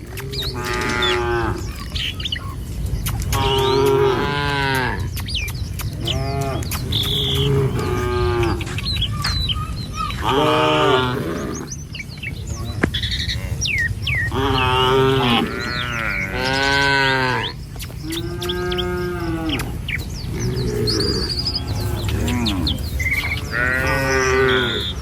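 Cattle in a herd mooing again and again, long drawn-out calls of differing pitch following one another every second or two, over a steady low rumble.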